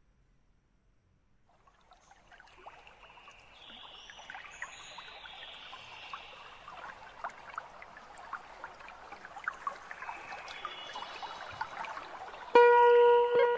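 Battered tempe frying in hot cooking oil: sizzling with many small crackles that starts a second or two in and grows louder as more pieces go into the pan. Near the end, loud plucked guitar music comes in.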